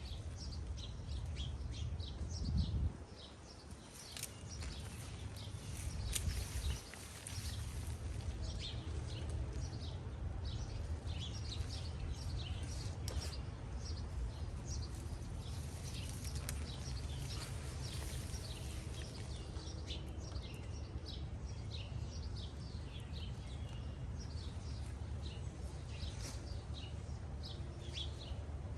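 Small birds chirping throughout, many short high calls, over a steady low rumble that briefly drops out twice in the first seven seconds.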